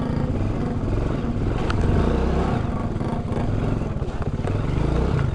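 Motor scooter's small engine running steadily at low speed, a low drone, as it is ridden slowly over a rough, muddy dirt track.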